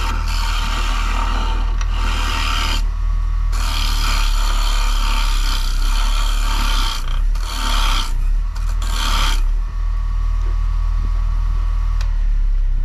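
Wood lathe running with a steady low hum while a carbide turning tool cuts a spinning maple bowl blank, a harsh scraping hiss in long passes with short pauses, as the blank is trued and rounded. The cutting stops about three seconds before the end, leaving only the lathe running.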